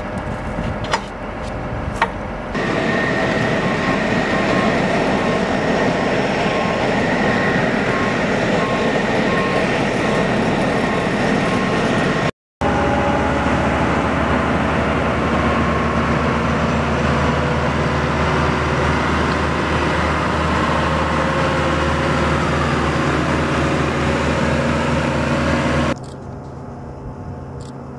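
A couple of metallic clicks from the tow bar being hitched to the helicopter's nose gear, then a heavy aircraft tow tractor's engine running loud and steady as it tows an Mi-17 helicopter. The sound breaks off for an instant about halfway and drops to a quieter background near the end.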